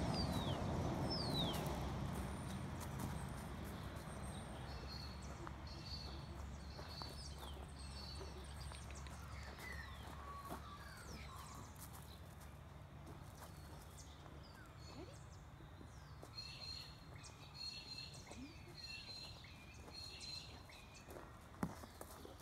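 Birds chirping and calling, with short high calls repeated in runs and some quick downward whistles. A low vehicle rumble fades away over the first few seconds, and there are scattered light crunches of footsteps on gravel.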